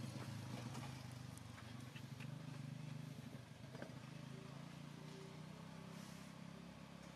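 A motor vehicle's engine running steadily with a low hum, a little louder in the first few seconds.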